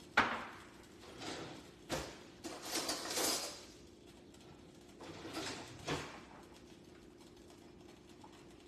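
Kitchen utensils clinking and scraping: a sharp knock about a quarter of a second in, another near two seconds, and short scraping or rustling passages around three and five to six seconds, over a faint steady hum.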